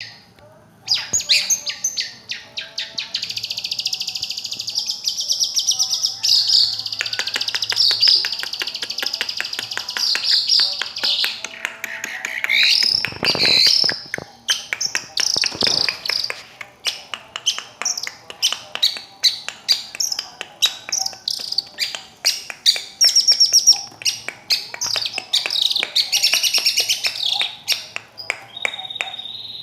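Long-tailed shrike (cendet/pentet) singing: a fast, near-continuous string of chattering notes broken by sweeping whistles, with a slightly longer pause about a quarter of the way in.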